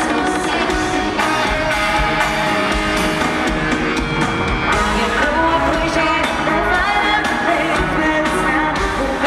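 Live pop-rock music in a concert hall, heard from the audience: a keytar played with the band, with singing over it.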